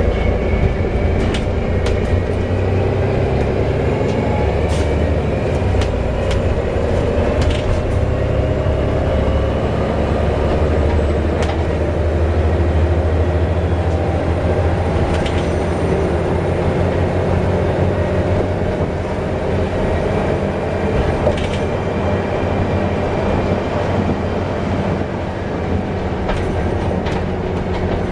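Volvo B7TL double-decker bus running, heard from inside: a steady low engine drone with whining tones over it and occasional short rattles.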